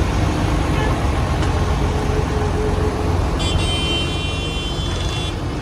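Heavy diesel engines of truck-mounted cranes running with a steady low rumble. A shrill pitched whine sounds over it for about two seconds past the middle, then stops.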